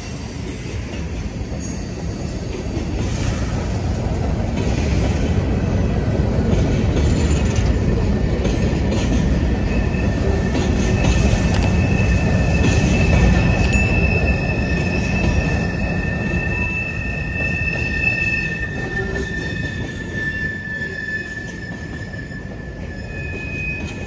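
Freight train's covered hopper cars rolling past on a curve: a steady rumble of wheels on rail that swells toward the middle. About ten seconds in, high thin wheel squeal sets in as steady tones.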